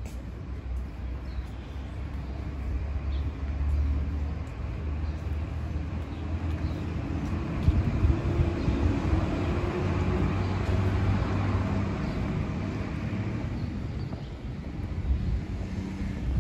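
Street traffic with a low steady rumble, and a car passing that rises and fades about halfway through.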